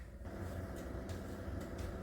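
A household appliance switches on about a quarter second in and runs with a steady hum, with a few faint clicks.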